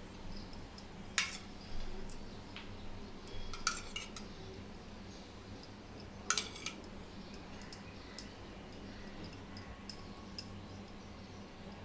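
Steel spoon scraping and tapping on bread slices as tomato ketchup is spread, with light ticks throughout and three louder metallic clinks about a second in, near four seconds and just past six seconds.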